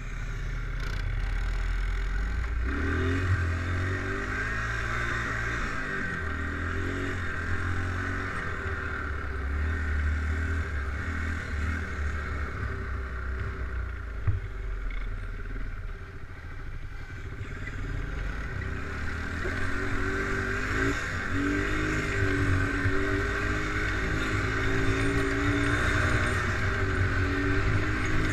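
An ATV engine running under load, its pitch rising and falling as the throttle opens and closes, with a steady rushing noise beneath it and a single sharp knock about halfway through.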